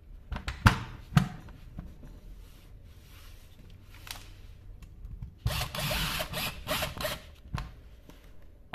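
Plastic clicks and knocks as a corded drill's housing cover is pressed into place, then, about five and a half seconds in, roughly a second and a half of a power screwdriver driving a housing screw.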